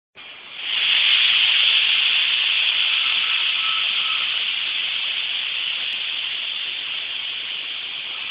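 Loud, steady hiss of factory background noise. It builds within the first second, then slowly fades.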